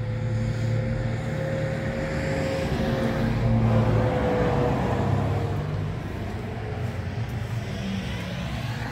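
A motor vehicle's engine running, growing louder to a peak around the middle and then easing off, as when it passes by.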